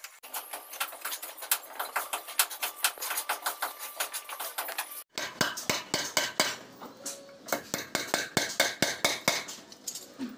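Rapid light clicking and tapping, then, after a break about five seconds in, a hammer driving nails into a wooden door jamb with quick light strikes, several a second, metal ringing on metal.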